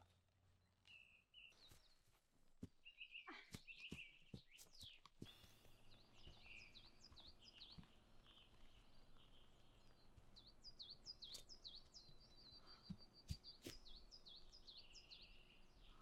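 Quiet outdoor ambience with faint birdsong: short, high chirps repeated over and over, most frequent in the second half. A few faint footsteps on a stony path come in the first few seconds.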